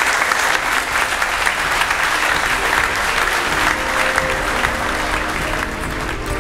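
Audience applauding, dense steady clapping. About halfway through, music comes in underneath.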